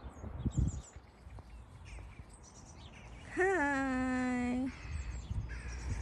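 A sheep bleats once: a single baa of a little over a second that rises at first, then holds steady before stopping.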